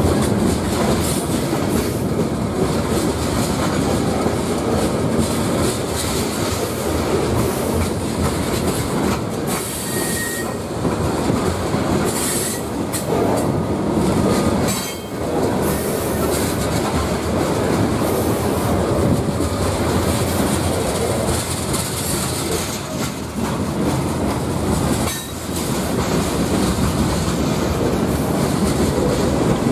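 Norfolk Southern manifest freight train's cars rolling past at close range: a steady rumble and clatter of steel wheels on the rails, with brief high wheel squeals now and then.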